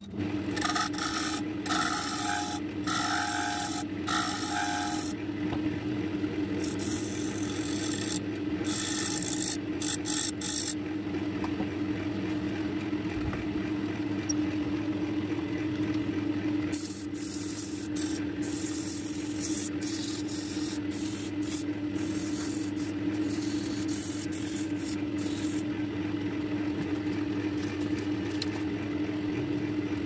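Wood lathe running with a steady hum while a tool or abrasive scrapes against the spinning paduk blank. The scraping comes and goes in passes.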